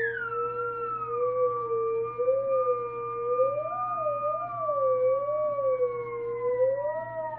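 Open.Theremin electronic theremin running a polyphonic sketch, playing two gliding tones at once. The lower tone wavers slowly up and down while the higher one holds, then slides down near the end.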